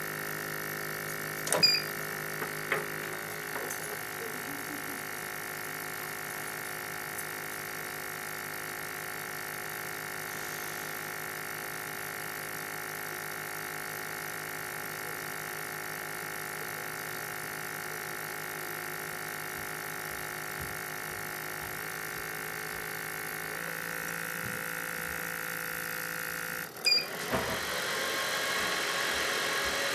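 Jovy RE-7500 BGA rework station running with a steady whirring hum from its heaters' fans and the vacuum pickup pump. A couple of sharp clicks come a couple of seconds in. Near the end a clunk is followed by a louder whir.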